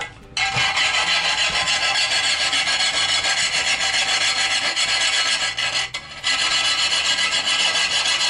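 A tungsten-carbide-coated wire saw, worked by hand with no frame, rasping back and forth through a ceramic tile in quick, even strokes. It pauses briefly about six seconds in.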